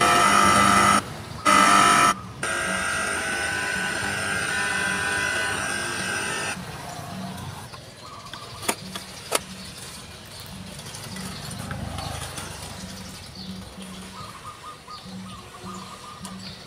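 Victor RC-X750 boombox sounding through its speakers: two short loud bursts of tones, then a steady music-like sound for about four seconds that cuts off. About two seconds later come two sharp clicks as the cassette deck is loaded.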